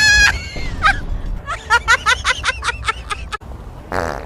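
A sharp high squeal at the start and a rapid run of short squeaks in the middle, then a short low buzzing fart near the end.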